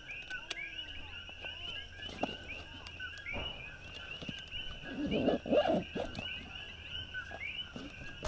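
A chorus of coqui frogs chirping steadily and densely. A louder, lower animal call breaks in about five seconds in.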